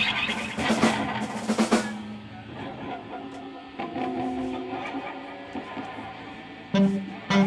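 Instrumental heavy rock band with electric guitar, bass guitar and drum kit: a drum fill with cymbal crashes for about two seconds, then a quieter stretch of held, ringing notes, then loud hits again near the end.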